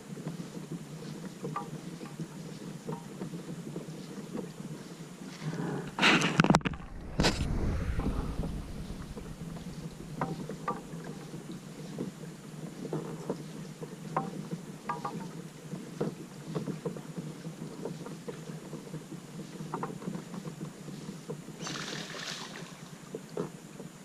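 Kayak on the water: small splashes and drips from the paddle over a steady wash of water. About six seconds in comes a brief, much louder rush and rumble, with a shorter hissing rush near the end.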